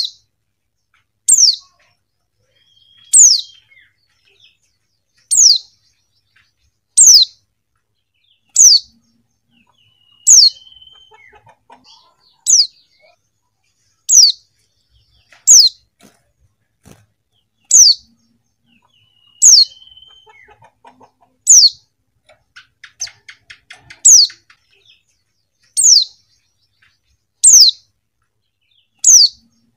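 Female white-eye (pleci) calling: a short, high note that falls in pitch, repeated about every one and a half to two seconds, with fainter soft chatter between some calls.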